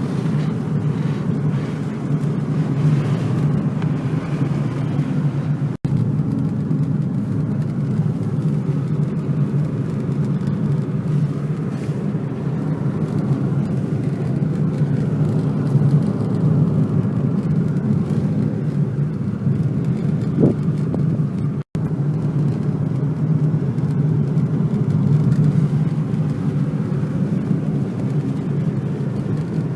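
Steady road and engine noise inside a car driving on a mountain road: a constant low rumble, briefly cut out twice.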